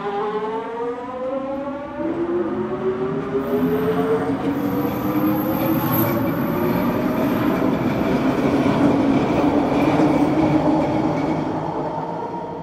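A SkyTrain train's linear induction motor drive accelerating: a stack of whining tones rises steadily in pitch, drops back once about two seconds in and climbs again. Under it, wheel and running rumble grows to its loudest around ten seconds in, then fades near the end.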